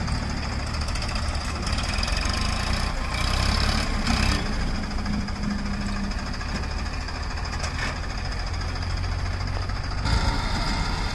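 HMT 4522 tractor's diesel engine idling steadily.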